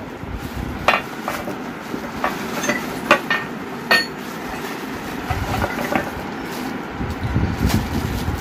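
Brass lamp pieces clinking and knocking against each other and on a granite counter as they are handled: several sharp metallic taps, most in the first four seconds, over steady background noise.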